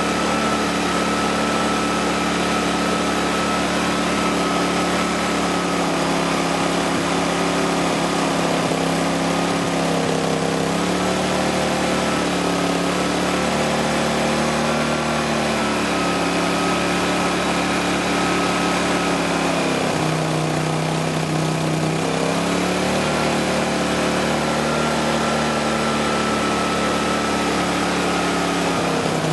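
Fuji Micro 5200i generator's engine running, its speed sagging and picking up again several times. It has a carburettor fault that the owner thinks may be a blocked jet, which makes it stall in operation.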